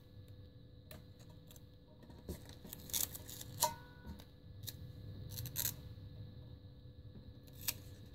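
Vinyl wheel-stripe decal and its paper backing being handled and pressed onto a motorcycle rim by hand: faint, scattered crinkles and clicks. The sharpest crackle, with a brief squeak, comes about three and a half seconds in.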